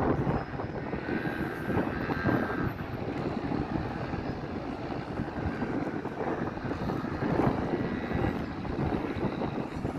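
Engines of a car and a quad bike running at a distance over open ground, heard as a steady, rough drone, with a faint whine between about one and two and a half seconds in.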